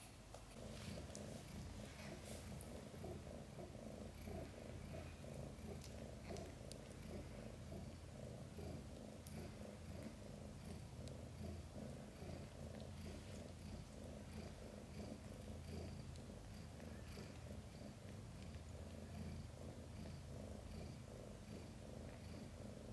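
Mother cat purring steadily and softly, a low continuous rumble, while her newborn kittens nurse just after birth.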